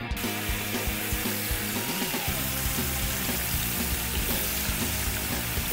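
Background music over a steady hiss that starts and stops abruptly, like the audio of a separate clip.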